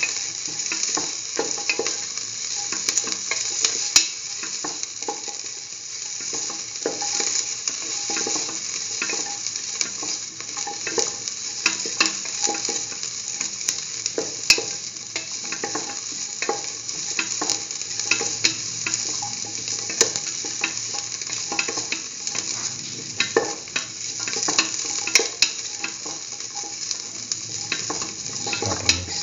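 Sliced onion and shallots sizzling in hot oil in a pan while they are stirred, with frequent short scrapes and clicks of the utensil against the pan over a steady frying hiss.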